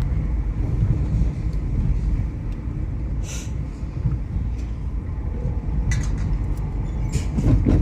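Steady low rumble of a car driving, road and engine noise heard from inside the cabin, with a short hiss about three seconds in and a few faint clicks near the end.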